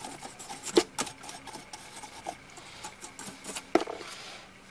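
Small wire brush scrubbing a steel brake caliper mounting bracket, an irregular scratchy rasping of short strokes broken by a few sharp knocks of metal against metal.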